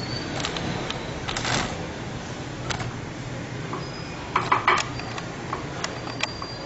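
Scattered light clicks, taps and scrapes as a silicone spatula spreads a thick cream sauce over chicken pieces in a glass baking dish, bumping against the glass, with small clusters about a second and a half in and again around four and a half seconds. A steady low hum runs underneath.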